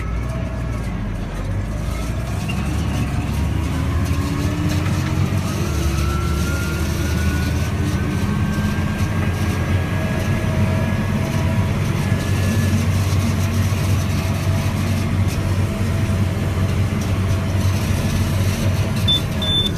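Tractor engine running steadily under load while driving a Lely round baler, with a continuous low hum and faint machinery whines. A repeated high electronic beep starts near the end.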